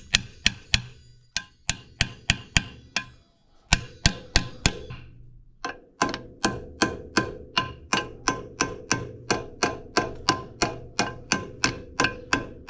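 Hammer tapping a part of a slurry tanker's vacuum pump back into its seat so the bolts can take hold: a string of sharp, ringing metal knocks. The knocks are scattered at first, then from about halfway settle into a steady run of about three a second.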